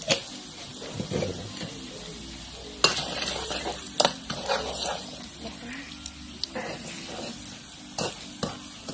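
Chopped aromatics sizzling in hot oil in a wok while a metal spatula stirs and scrapes them, with several sharp knocks of the spatula against the wok.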